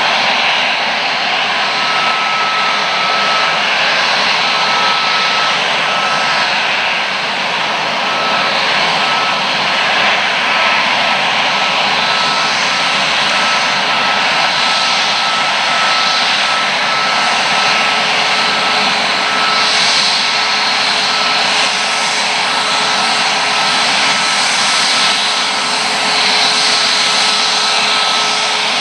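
Boeing 737 MAX 8-200's CFM LEAP-1B turbofan engines running at taxi power as the jet rolls in close. A steady jet rush carries a constant high whine.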